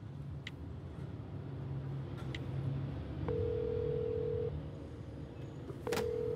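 Phone ringback tone as a call connects: a steady beep, about a second long, heard twice with a pause between, over the low hum of a car interior.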